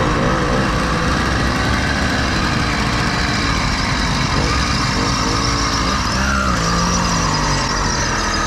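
80cc two-stroke motorized-bicycle engine running, its pitch shifting up and down.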